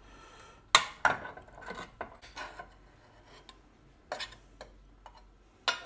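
Metal tin of baked beans and sausages being opened by its ring-pull lid: a series of sharp metallic clicks and short scrapes, the loudest about a second in and another just before the end.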